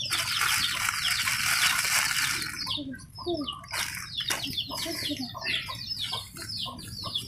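Small birds chirping busily, many short falling chirps a second. A loud rustling hiss runs over them for about the first three seconds, then stops, leaving the chirping alone.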